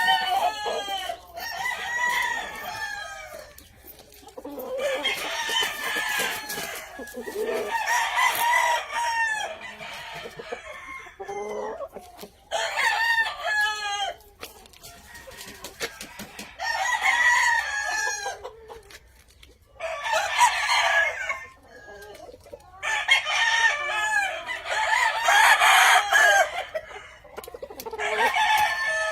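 Several game-fowl roosters crowing in turn, one long crow after another every few seconds, some overlapping.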